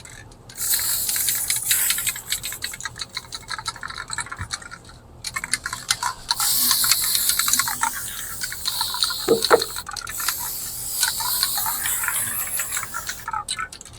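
Spray wash cleaner being sprayed over a lawnmower, a steady hiss in two long stretches with a short pause about five seconds in.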